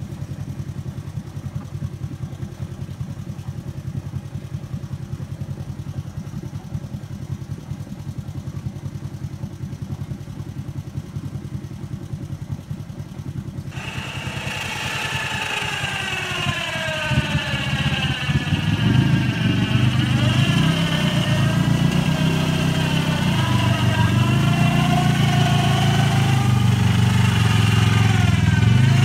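Off-road side-by-side buggy engine idling with a steady low pulsing, then from about halfway a louder engine running and revving, its pitch rising and falling and the sound growing louder.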